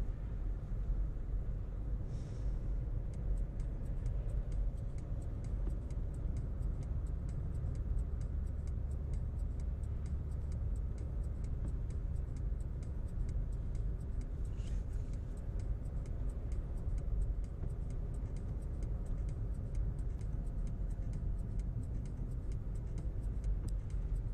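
Car driving along with a steady low road and engine rumble, and a faint fast ticking repeating evenly through most of it.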